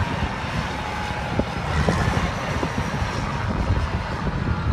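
Cat 657G push-pull scraper's diesel engines working hard as it self-loads dirt into its bowl, a steady heavy rumble with a faint high whine over it.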